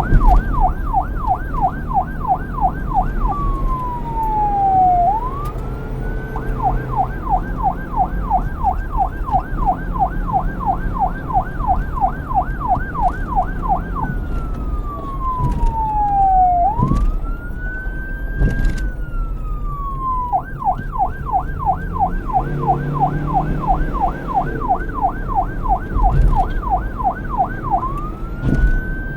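Police siren switching between a fast yelp, about three sweeps a second, and a slow wail that rises and falls. A low rumble runs underneath.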